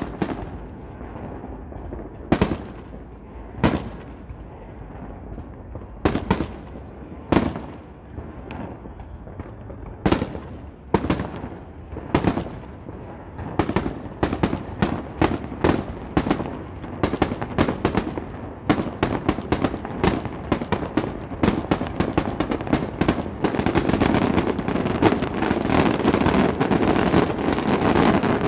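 Aerial fireworks: shell bursts banging singly, a second or two apart at first, coming faster from about halfway, and merging into a dense, near-continuous barrage of bangs and crackle over the last few seconds.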